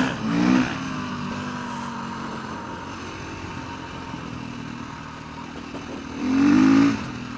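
Motorcycle engine running while riding on dirt, with two short throttle openings that rise in pitch, one just after the start and one near the end, over steady wind noise.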